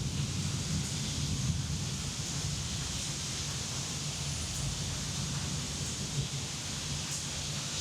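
Steady rain hiss with a low rumble of thunder underneath, the rumble a little stronger in the first couple of seconds.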